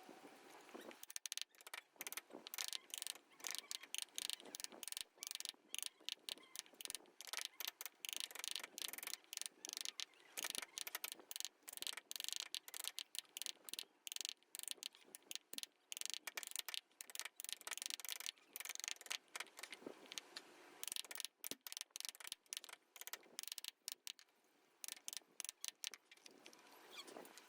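Hand carving tool scraping and cutting into wood in rapid, irregular strokes, with brief pauses between runs of strokes.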